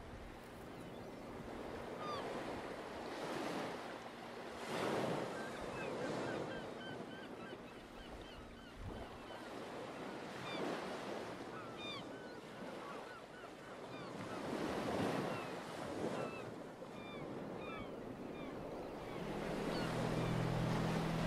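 Sea waves washing ashore, swelling and falling back every few seconds, with small birds chirping over them.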